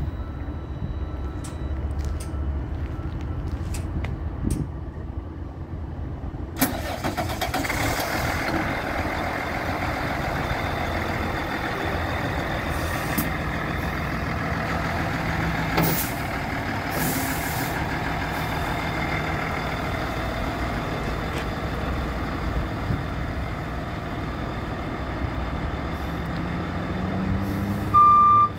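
Diesel engine of a Freightliner M2 106 utility truck running. The sound rises suddenly about six and a half seconds in, then runs steadily. Near the end a rising engine note comes in, and a reversing beeper starts.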